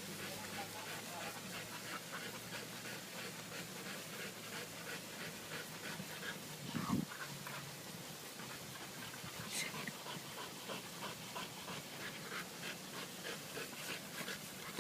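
A pit bull panting fast and rhythmically, the heavy panting of a dog overheated from running. A single low thump about seven seconds in.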